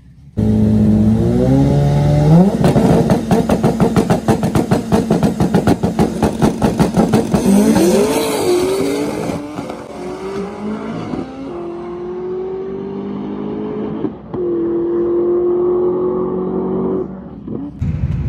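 Turbocharged Honda Civic drag car's engine revving up in steps, then held at high revs with a rapid, even stutter for about five seconds. About eight seconds in the pitch climbs as it accelerates away, and the engine then runs on steadier and fainter down the strip.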